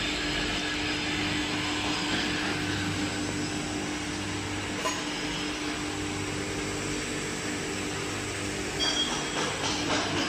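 Horizontal glass edging and beveling machine running steadily, its water-cooled grinding wheels working the edge of a glass sheet: a constant motor hum under a grinding hiss. A few brief, louder high-pitched scrapes near the end.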